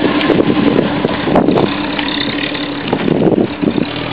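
Holden VB Commodore sedan driving past close by and pulling away, its engine running steadily.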